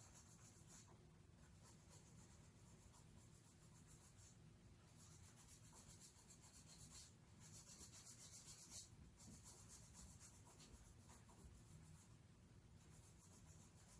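Near silence: a faint, scratchy high hiss that comes and goes every second or so.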